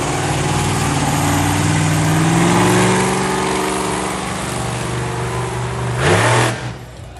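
Monster truck engine revving as the truck drives. The pitch climbs over the first few seconds and then eases off, with a short, sharp rev about six seconds in before it drops back.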